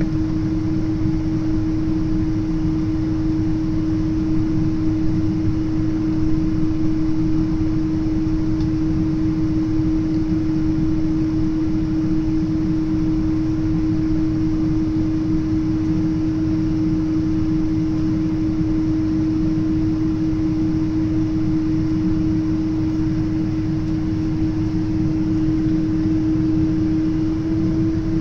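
Steady cabin drone inside a Japan Airlines Boeing 777-300 airliner on the ground with its engines at idle, a constant hum over a low rumble and air hiss.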